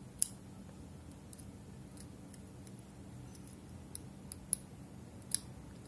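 Cutter blade scraping thin burrs off the trimmed tip of a plastic Mini 4WD propeller shaft gear: faint, scattered short scrapes and ticks, about seven in all, over a faint low steady hum.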